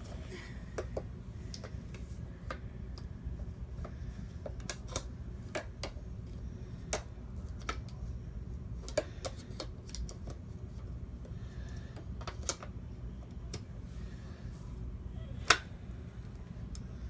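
Irregular light clicks and taps of Kirby vacuum parts and attachments being handled, over a low steady hum, with one sharper click near the end. The vacuum motor is not running.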